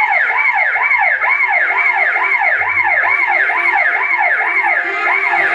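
A loud, fast-warbling siren wail, its pitch sweeping up and down about twice a second without a break.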